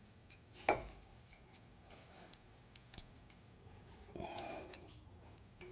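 Light metal clicks and a clunk of brake hardware being handled, a knock about a second in, and a brief scraping rattle near the end, as the new brake pad clips are worked onto the caliper bracket.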